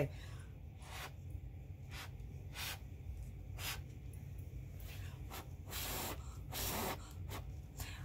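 Scattered short rustling and rubbing noises of hands handling things, the longest two near the end, over a low steady hum.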